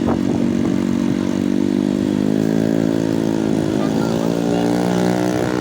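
Vehicle engine running with a steady drone, its pitch rising slightly partway through.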